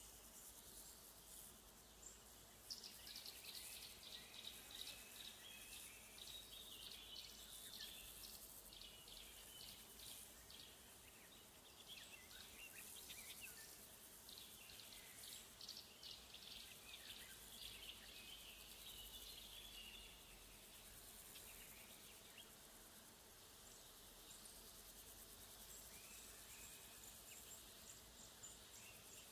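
Faint woodland ambience: crickets keep up a steady high-pitched hiss, while a small songbird twitters in quick, short, high chirps from about 3 seconds in until about 20 seconds in.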